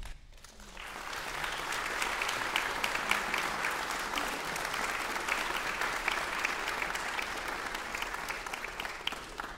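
Audience applauding, the clapping swelling in about a second in and then holding steady.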